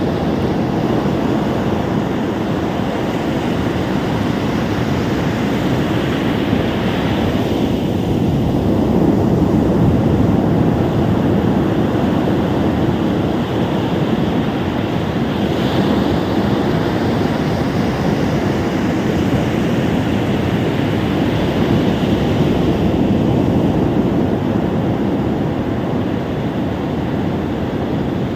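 Ocean surf washing onto a beach: a steady roar of waves, with a brighter swell of breaking water every several seconds.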